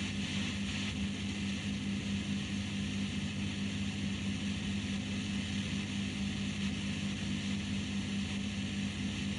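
A steady low hum over a constant hiss, with no change in level.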